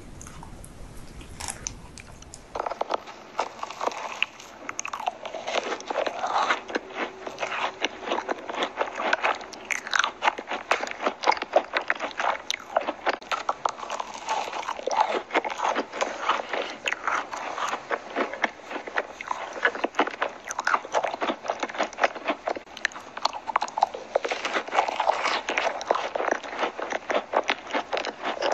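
Close-miked biting and chewing of macarons: crisp crunches of the shells and chewing clicks in quick succession, louder and denser from about two and a half seconds in.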